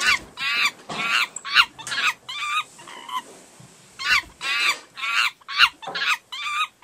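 A voice giving a rapid series of short, squealing, warbling cries, with a brief pause about halfway through.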